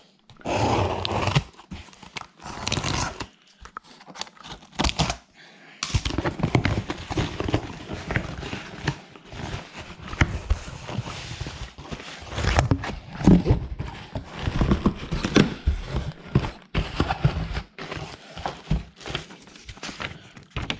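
Cardboard box being opened and unpacked by hand: rustling and scraping with irregular thumps and knocks, busier from about six seconds in.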